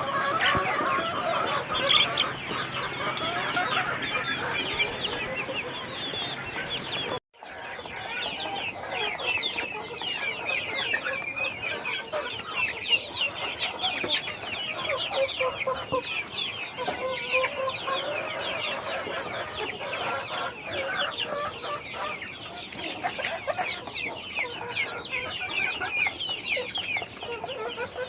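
A flock of chickens clucking and chicks peeping in a dense chorus of many overlapping short, high calls. The sound drops out briefly about seven seconds in; lower-pitched clucks are stronger before the break.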